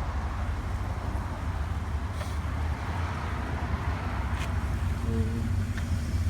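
A car engine idling, a steady low rumble, with a brief voice about five seconds in.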